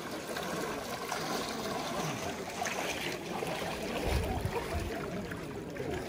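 Water sloshing and trickling around many bathers wading in a shallow hot-spring pool, under a faint murmur of distant voices. A brief low rumble comes about four seconds in.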